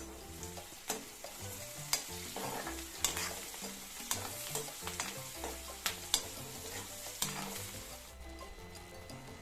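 Food sizzling as it fries in a pan while being stirred, with the utensil clacking against the pan about eight times. The sizzling cuts off about a second before the end.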